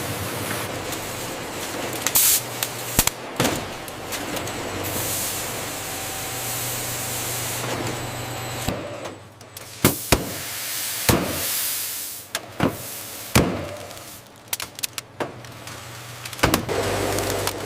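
Production machinery running with a steady hiss and hum, broken by irregular sharp clicks and knocks.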